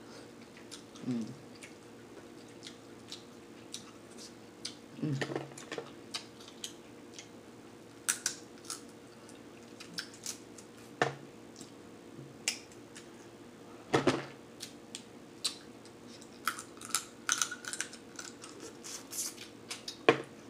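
Snow crab leg shells being cracked and snapped apart by hand, an irregular run of sharp cracks and clicks, mixed with chewing and mouth sounds.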